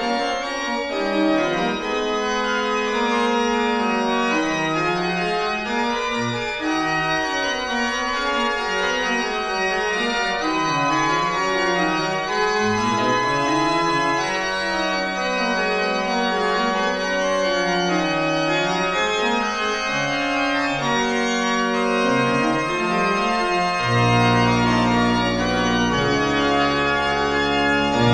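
Church organ playing a sustained, many-voiced piece with a moving bass line; a deep low pedal note comes in about four seconds before the end.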